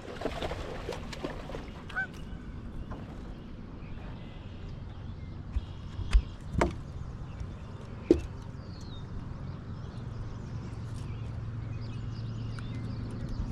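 A goose honks once about two seconds in, over a steady low hum. Several sharp knocks come around six and eight seconds in.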